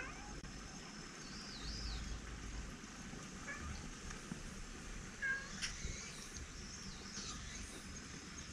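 A silver tabby cat meowing briefly twice: once at the start and again about five seconds in.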